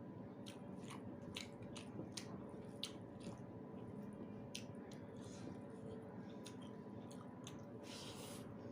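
A person chewing a mouthful of white rice with dal and egg-potato curry, with irregular soft mouth clicks and smacks several times a second. There is a brief rustle near the end.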